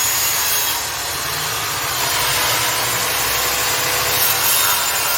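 Makita 5806B 185 mm electric circular saw running at full speed and cutting through a 1x6 wooden board, a steady high-pitched sawing noise over the motor's hum. It cuts smoothly, without labouring.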